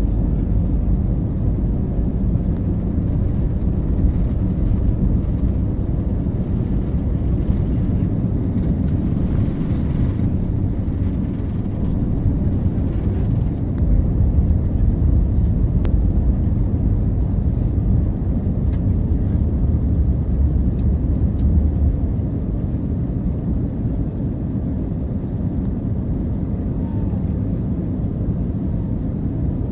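Deep, steady jet rumble of a four-engine Airbus A380 passing over, swelling a little about halfway through and then easing off.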